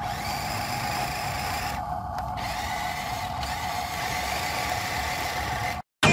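Small electric motor and plastic gearbox of an RC truck whining steadily at a constant pitch, cutting off abruptly near the end.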